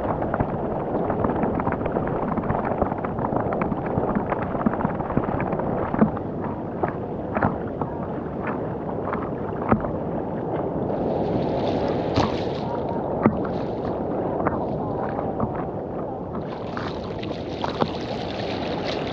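Ocean water sloshing and splashing around the camera of a swimmer, a dull churning with many small knocks. A brighter, hissing splash comes in about eleven seconds in and again for the last few seconds.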